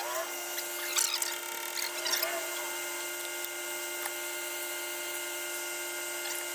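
Steady mechanical whine from a running concrete pump truck, holding one even pitch with several overtones. A few short squeaky sounds come through in the first two or so seconds.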